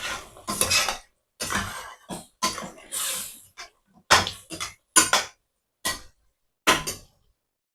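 Cooking utensils clattering and scraping against a pot in a series of irregular knocks, stopping about seven seconds in.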